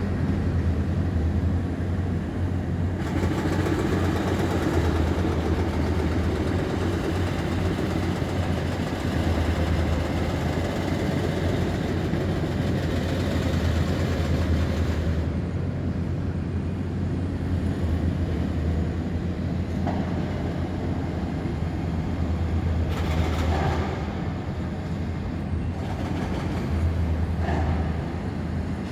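A steady low mechanical rumble with a constant droning hum, the sound of heavy vehicles or a train running. It swells and eases at times, with a few short louder surges near the end.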